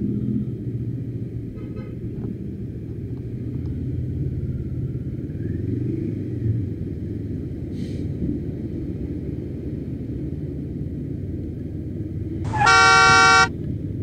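Steady low rumble of road riding noise, then a vehicle horn sounds once, loud and steady for about a second, near the end.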